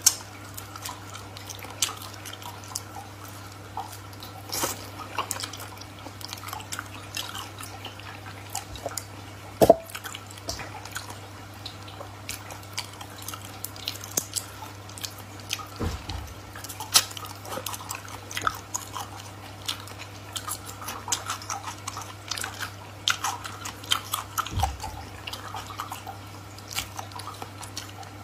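Close-miked wet eating sounds of raw marinated shrimp: sucking, chewing and the shells being peeled by hand. Many small sticky clicks and crackles, a few sharper than the rest, over a steady low hum.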